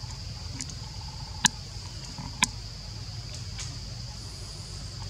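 Steady high-pitched drone of insects, over a low steady hum. Two sharp clicks about a second apart stand out in the first half.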